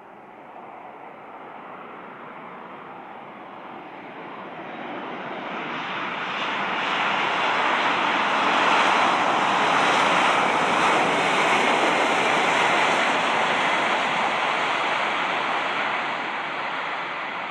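Airbus A320-232's twin IAE V2500 turbofan engines at takeoff power as the jet accelerates down the runway: a rushing jet noise with a faint high whine that swells, is loudest from about eight to thirteen seconds in as the aircraft passes, then begins to fade.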